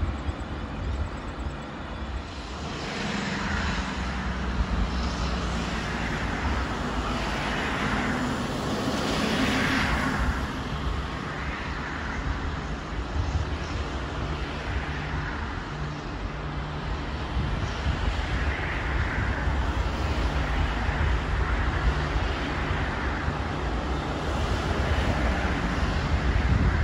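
V/Line VLocity diesel multiple unit approaching on the rails, its diesel engines giving a steady drone that grows louder near the end.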